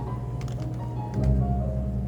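Background music with a bass line and held notes, louder from about a second in, with a few faint Happy Hacking Keyboard keystrokes over it.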